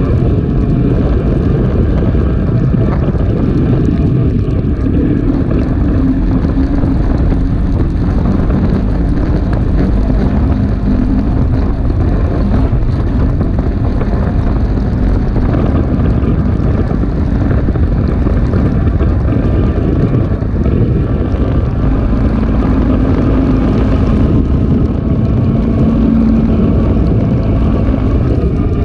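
Polaris RZR 570 side-by-side running under way, its single-cylinder engine note rising about five seconds in and again near the end, with heavy wind buffeting on the microphone.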